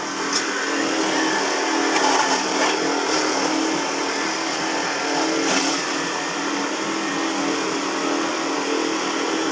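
Cassava grinder machine with a 2 HP motor running steadily: a constant motor hum under a rough whirring noise, with a couple of brief ticks.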